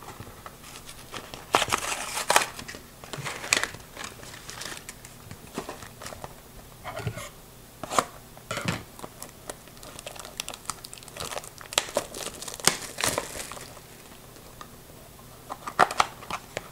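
Plastic packaging on a trading-card box being crinkled and torn open, with irregular sharp crackles and rustling bursts.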